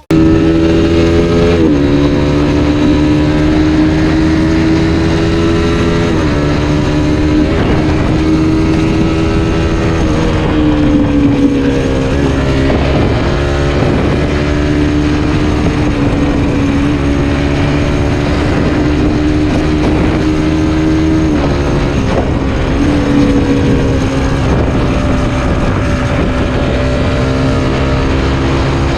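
Suzuki Satria FU 150's fuel-injected single-cylinder four-stroke engine running steadily on the move, its pitch drifting and stepping abruptly several times as the rider shifts gears.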